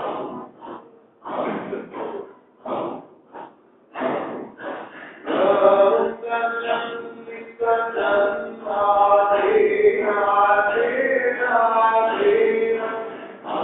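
Men's rhythmic, breathy chanting of a Sufi hadra dhikr, short forceful exhalations repeated about every half second. From about five seconds in, a long, drawn-out melodic chant in male voices rises over it and fades near the end.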